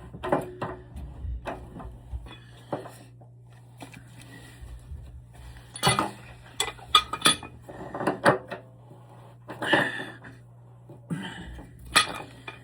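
Scattered metallic clicks and clinks of a tool on a new electric water heater heating element as it is tightened into the tank, a little past hand tight, with a cluster of sharper knocks in the second half.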